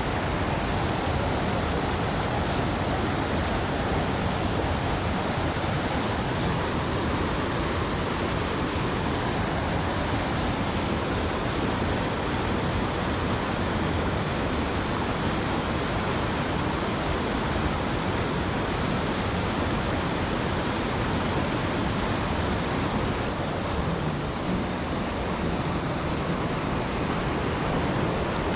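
Steady rush of flowing water, an even noise that holds constant throughout.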